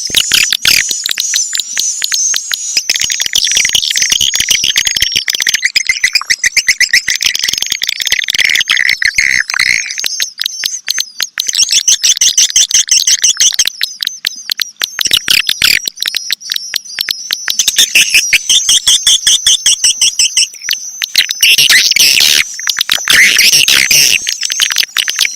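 Swiftlets chirping and twittering in a dense chorus: a rapid stream of clicks mixed with high trills. This is a swiftlet calling sound, played to lure swiftlets to roost and nest.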